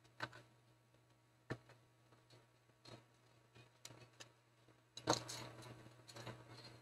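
Faint clicks and scrapes of a screwdriver working on a Compaq CQ41 laptop's plastic chassis during disassembly: a few separate sharp clicks, then a louder run of clicking and scraping about five seconds in.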